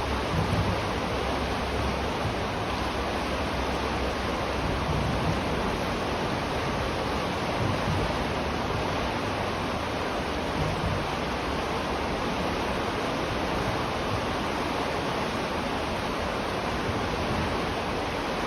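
River water flowing and rushing steadily, a constant even wash of sound with a low rumble underneath.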